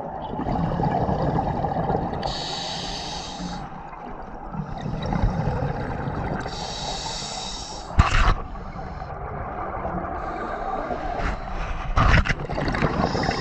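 A scuba diver breathing underwater through a regulator: a low rumbling hiss of inhalation, with three bursts of exhaled bubbles rushing past, about four to five seconds apart. Two sharp knocks come in the second half.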